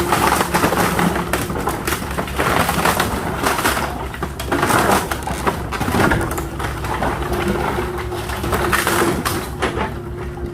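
Small excavator's engine running steadily while wooden pallets crack and splinter under the bucket, in many irregular cracks.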